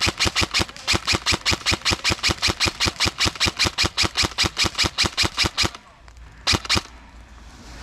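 Airsoft gun firing on full auto: a long stream of rapid shots, about eight a second, that stops about six seconds in, then a short burst of two more shots.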